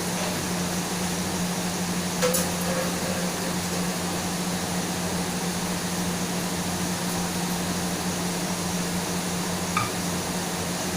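Steady mechanical hum and hiss, like a running fan or air conditioner, broken by two brief knocks, one about two seconds in and one near the end.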